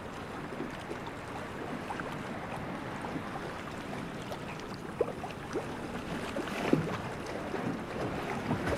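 Steady wind and lapping water, with a few small knocks.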